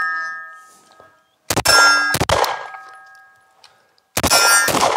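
PSA Dagger 9mm pistol fired four times in two quick pairs, each pair followed by a steel target ringing and slowly fading.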